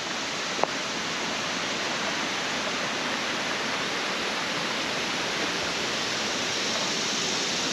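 The Little Pigeon River flowing steadily, an even rush of moving water. A single short click sounds about half a second in.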